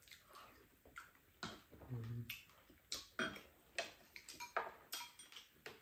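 Metal spoons and chopsticks tapping against ceramic bowls during a meal: a run of light, irregular clicks and clinks, with a short low hum from a voice about two seconds in.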